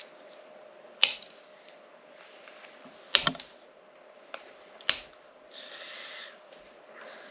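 Sharp plastic clicks from an old car key shell being worked by hand as a glued-in part is pried free: three single clicks about two seconds apart, then a brief scrape near the end.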